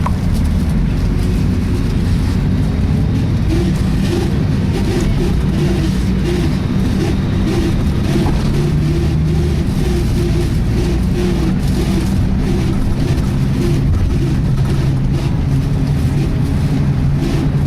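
Volvo B10BLE single-deck bus under way, its diesel engine running steadily, with a loud rhythmic "sweeping" noise pulsing a couple of times a second. The uploader takes the noise for a serious fault.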